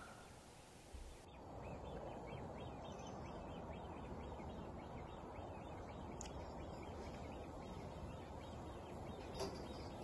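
Faint outdoor ambience: a steady low rush of wind noise with faint, distant bird calls.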